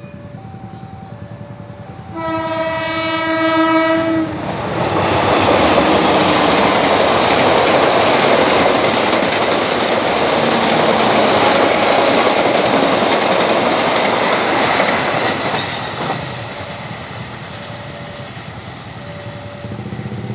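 A diesel train's horn sounds once for about two seconds. Then a passenger train passes close by at speed: a loud, steady rush and clatter of wheels on the rails that falls away after about fourteen seconds. A faint two-tone level-crossing warning beeps before the horn and again near the end.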